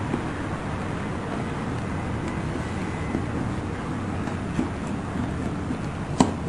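Steady low background rumble, with faint ticks and one sharper click near the end as ukulele strings are handled and pulled at the bridge.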